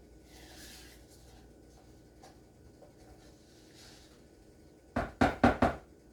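Faint scraping as sour cream is spooned out of a measuring cup, then four quick, loud knocks near the end as the utensil is tapped against the mixing bowl to shake off the last of the sour cream.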